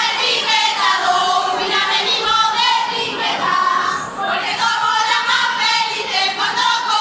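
A carnival group of women singing a song together in chorus.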